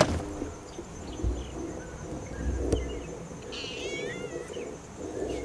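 A cat meowing once, a short wavering call about three and a half seconds in. A sharp click comes at the very start, and a steady high insect drone runs underneath.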